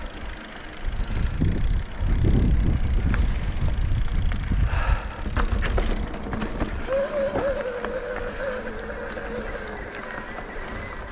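Mountain bike ridden over a rough dirt trail: low rumble and rattling knocks from the tyres and frame, strongest in the first half. About seven seconds in, a thin wavering whine starts and slowly drops in pitch over a few seconds.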